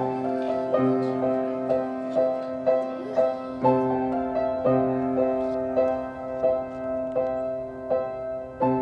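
Solo piano music: a slow, gentle piece with notes struck about twice a second over a held low note.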